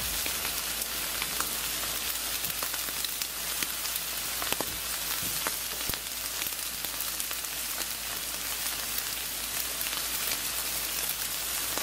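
Steak sizzling on a charcoal grill: a steady hiss with scattered pops and crackles.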